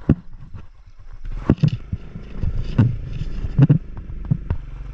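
Motor scooter engine running as it rides over a bumpy dirt track, with several loud thumps and knocks from the bumps.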